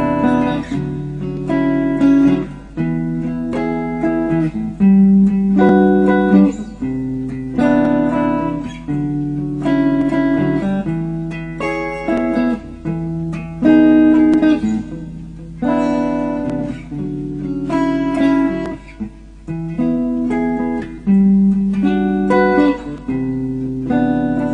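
Background music: a guitar playing plucked notes and chords.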